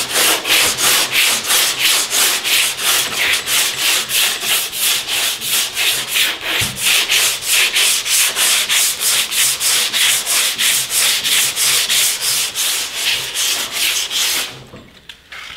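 Long hand sanding block with 80-grit stick-on sandpaper rasping back and forth over cured body filler on bare sheet metal, about three strokes a second, knocking down a second coat of filler. The strokes stop near the end.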